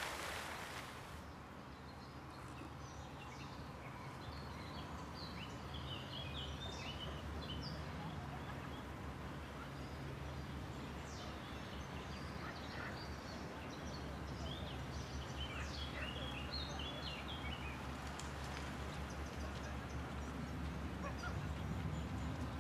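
Songbirds chirping and singing in scattered short phrases over a steady low background hum. A rush of broad noise cuts off about a second in.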